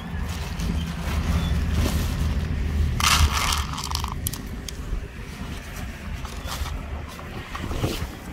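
Dry cat kibble rattling and scraping on a plastic lid as it is tipped out and pushed around with a finger, loudest about three seconds in, over a steady low rumble.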